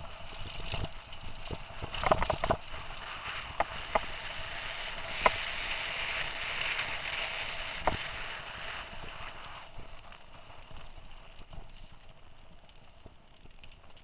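Mountain bike riding fast down a dirt singletrack: a steady rushing hiss of tyres and air that is strongest in the middle and fades near the end, with sharp knocks and rattles as the bike hits bumps, a cluster about two seconds in and single ones at about five and eight seconds.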